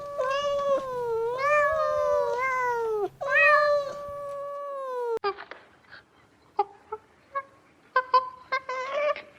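A domestic cat meowing: long, drawn-out meows one after another that bend up and down in pitch. About five seconds in the meowing cuts off suddenly, and only short, quieter chirps and clicks follow.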